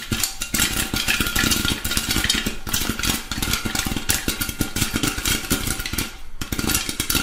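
Popcorn-popping sound effect: a dense, rapid crackle of many small pops and rattles, with a short lull about six seconds in.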